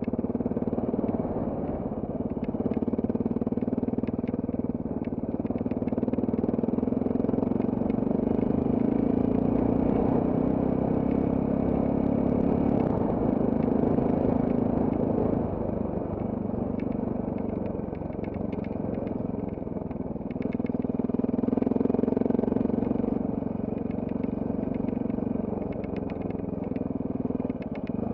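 Trail motorcycle engine running while the bike rides along an off-road track, its note easing off briefly a little past halfway and picking up again. Scattered clicks and clatter come from the bike over the rough ground.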